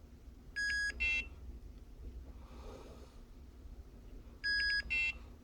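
Barracuda Tag Runner handheld RFID reader beeping as it reads a tag: a longer beep followed by a short one, heard twice about four seconds apart, each the reader's signal of a successful tag read.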